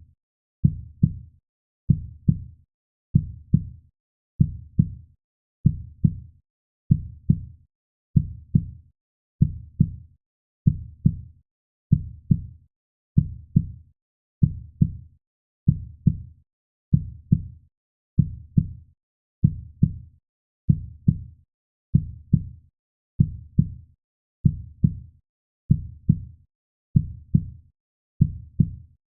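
Heartbeat sound: a steady, slow rhythm of low double thumps (lub-dub), about one beat every 1.2 seconds, with silence between the beats.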